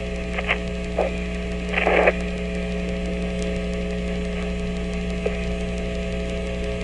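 Open Apollo lunar-surface radio channel between calls: a steady electrical hum and hiss with several faint constant tones, broken by a few short bursts of static in the first two seconds and a faint tick about five seconds in.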